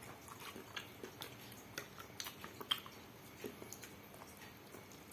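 Faint, irregular light clicks and taps of a metal utensil against a glass bowl as instant noodles in soup are stirred and lifted.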